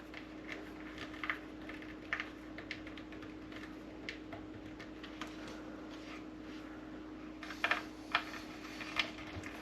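Faint, irregular small clicks and scrapes of a #1 Phillips screwdriver being turned by hand, driving a small screw into the coffee maker's housing, with a few sharper clicks near the end. A steady low hum runs underneath.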